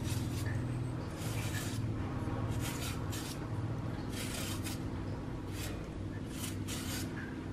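A small double-edged peeling knife scraping the skin off a daikon radish in short repeated strokes, about two a second, over a steady low hum.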